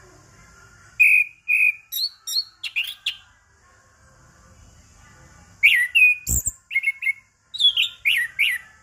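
Orange-headed thrush (anis kembang) singing two bursts of quick, varied whistled notes, the first about a second in and the second past the middle. A brief low thump sounds during the second burst.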